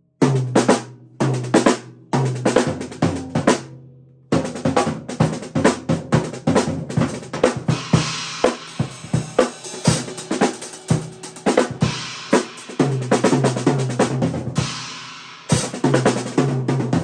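Acoustic drum kit played with sticks: rapid snare, bass drum and tom hits with cymbals ringing through the middle of the passage. The playing stops briefly about four seconds in and again near the end, then picks up again.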